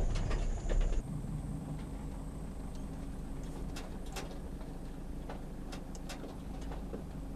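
Vehicle driving along a gravel track, a loud low tyre rumble that cuts off about a second in. Then a quieter steady low hum with a few short, sharp ticks scattered through it.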